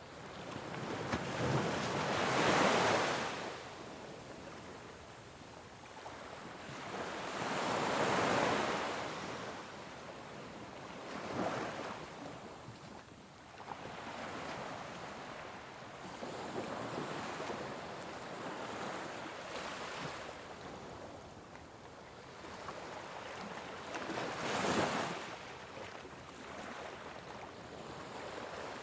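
Ocean waves washing onto a shore, swelling and breaking every few seconds, with the loudest surges about two, eight and twenty-five seconds in.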